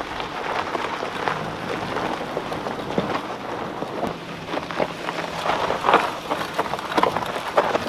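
Dense, irregular crackling and crunching noise over a faint low steady hum.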